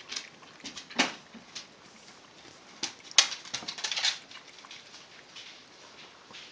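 A cat lapping water from a glass goldfish bowl: a run of small wet clicks and splashes, with a strong one about a second in and a quick cluster of them around three to four seconds in.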